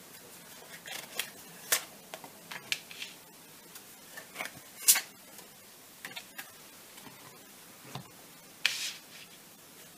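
Lenormand cards being shuffled and laid out: irregular sharp snaps and taps of the cards, the loudest about five seconds in, and a short sliding rustle near the end.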